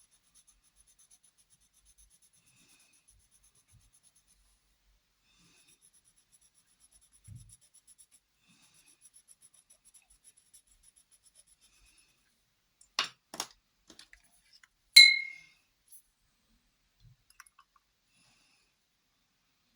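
Watercolour pencil scratching on paper in faint quick strokes, dry before water is added; then two sharp clicks and a single loud ringing clink of a hard object struck against something, about fifteen seconds in.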